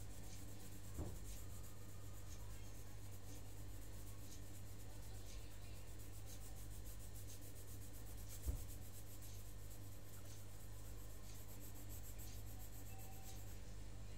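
Colored pencil shading on paper in rapid back-and-forth strokes, over a steady low hum. Two short knocks break in, about a second in and past the middle, the second louder.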